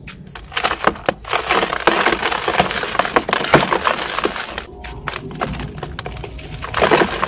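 Dry sand-and-cement balls crushed in bare hands, crunching and crackling as they crumble, with gritty powder and crumbs falling into a plastic basin. The crackling starts about half a second in, pauses briefly past the middle, and ends in a loud crunch.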